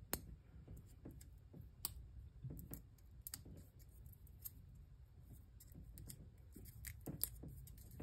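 Foil shielding and braided mesh of a Cat8 cable being peeled apart and untwisted by hand: faint, scattered crinkles and ticks.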